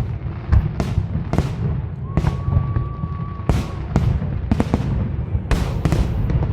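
Aerial fireworks shells bursting one after another: about a dozen sharp bangs over a continuous deep, echoing rumble. A single steady whistle tone is held for about a second and a half, starting around two seconds in.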